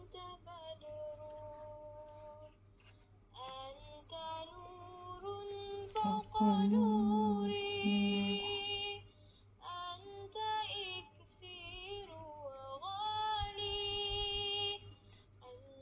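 A woman singing a slow melody in long held notes, some with vibrato, with short breaks between phrases.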